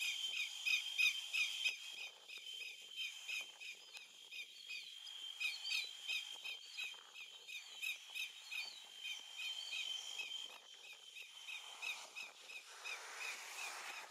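Greater yellowlegs alarm call: one sharp, high note repeated over and over, about three times a second.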